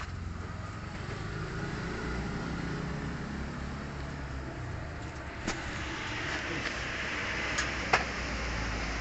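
Steady low rumble with a few sharp knocks, about five and a half and eight seconds in, the last the loudest: the steel frame of a corn sheller knocking as it is shifted about in a car's cargo area.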